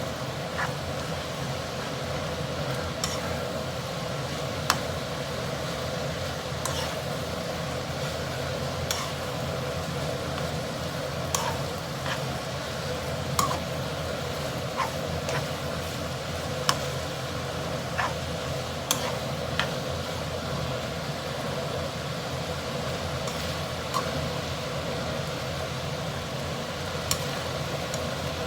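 Noodles being stir-fried in a pan: a steady frying noise and hum, with sharp clinks of the spatula against the pan at irregular intervals of a second or two.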